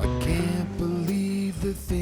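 Background music: an instrumental passage of a rock song with guitar and bass.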